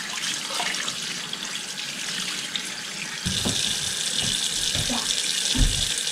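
Kitchen tap running into a ceramic sink, the water splashing onto a glass lamp shade being washed. The splashing turns louder and brighter about three seconds in, with a few dull knocks.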